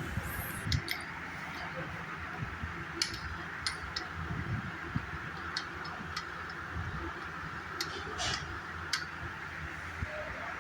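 Scattered light metallic clicks and taps from the opened gearbox shafts and gears of a Hero Glamour BS6 motorcycle engine being handled and turned by hand, over a steady hiss.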